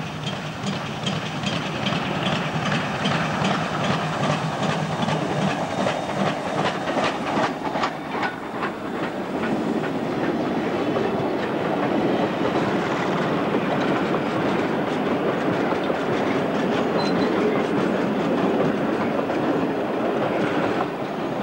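Queensland Railways C17-class steam locomotive passing close with rapid, even exhaust chuffs. From about eight seconds in, the heritage carriages and a tank wagon roll by, their wheels clicking over the rail joints.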